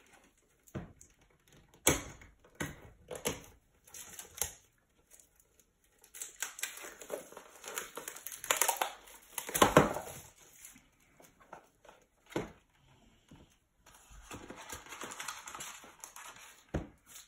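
Plastic wrapping crinkling and tearing as it is stripped from a trading-card hobby box, with scattered sharp clicks from handling the cardboard box. The crinkling comes in two stretches, a dense one in the middle and a softer one near the end.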